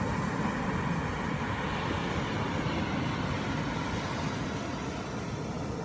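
Steady rushing beach ambience, an even continuous noise with no distinct events, easing slightly near the end.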